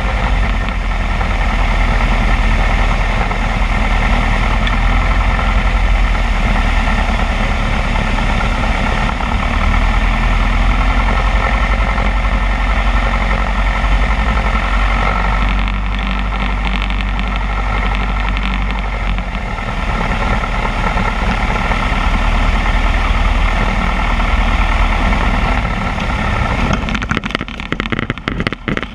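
Alon A2 Aircoupe's Continental C90 flat-four engine and propeller running steadily, heard from inside the cockpit on a landing approach. Near the end the sound drops and turns choppy as the plane comes down low over the grass strip.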